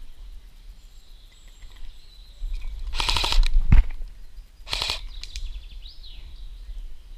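Airsoft rifle firing two short full-auto bursts of rapid clicks, about three seconds in and again near five seconds, with a low thump between them.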